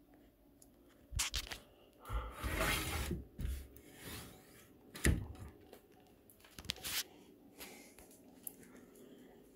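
Irregular dull knocks and scraping, rustling handling noise, with the sharpest thump about five seconds in.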